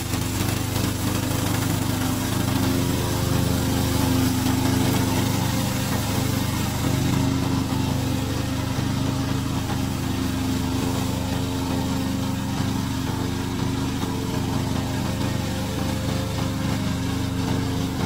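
Single-cylinder four-stroke engine of a tracked remote-control lawn mower running steadily under load while it cuts tall dry grass. About seven seconds in, the high hiss thins out.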